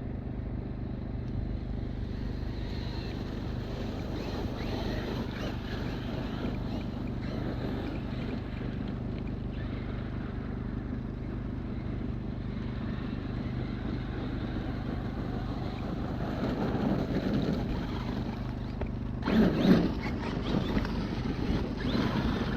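Traxxas X-Maxx electric RC monster truck running over wet, icy ground, with a steady low hum underneath. A louder, rough burst comes about nineteen seconds in.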